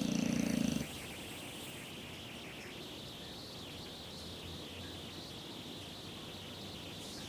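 English bulldog snoring: a loud, even buzzing snore that ends about a second in, then quieter, steady breathing noise.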